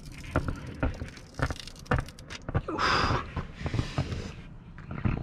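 Work noise from steaming and peeling old window tint off a car's rear glass: irregular clicks and knocks, with two short hissing bursts about three and four seconds in.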